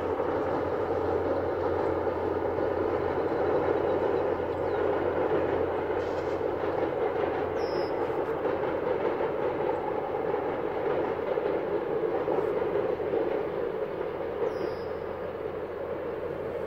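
Diesel-hauled commuter train crossing a high steel trestle viaduct: a steady rumble of locomotive and wheels on the bridge, growing a little fainter near the end as the train moves away.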